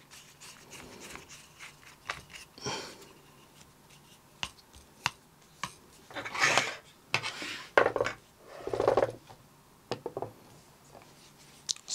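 Handling noises from a DJI RS2 gimbal and its tripod grip: scattered sharp clicks and a few short rubbing scrapes of hard plastic and metal as the grip is fitted and the tripod legs are spread.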